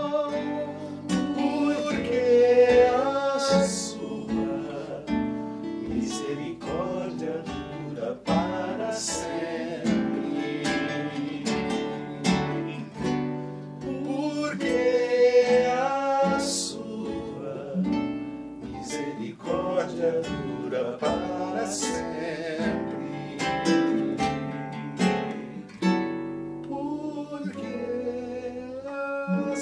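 Acoustic guitar music: an instrumental passage of a song, with a melody line over the guitar's plucked chords.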